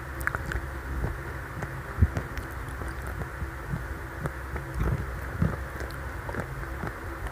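Chewing picked up close on a headset boom microphone: irregular soft low thumps with small mouth clicks.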